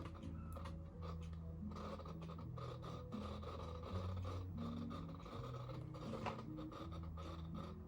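Canon EF 24-105mm f/4L IS USM lens's image stabilizer making a faint, abnormal low buzzing hum with a scratchy edge, its pitch jumping between steps every second or so, with small clicks. The noise sets in when the zoom ring is touched and stops with IS switched off, which the owner suspects is a stabilizer fault.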